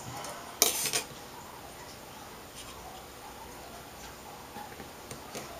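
Handling noise as an LED backlight strip is set into an LCD panel's reflector channel: a short scraping rustle about half a second in, then only faint small ticks and taps.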